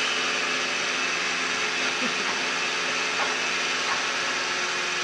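Steady hiss of background noise with a faint hum, without any distinct event.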